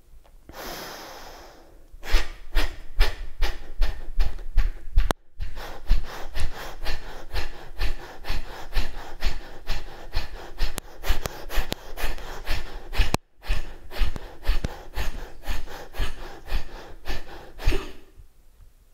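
Kapalabhati (breath of fire): after a long inhale, a rapid even series of forceful exhalations through the nose, about three a second, which stops about a second before the end.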